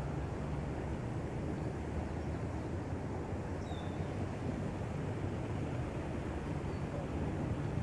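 Steady low rumbling outdoor background noise, with a short high bird chirp about four seconds in and another faint one near the end.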